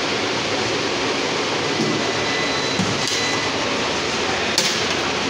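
Steady rushing hum of cooling fans running in a room full of solar inverters, with a faint thin whine over it. A short click about four and a half seconds in.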